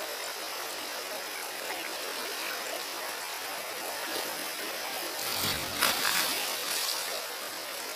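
Steady rush of shallow river water, with one louder splash about five and a half seconds in as a bucketful of water is thrown over a pickup truck.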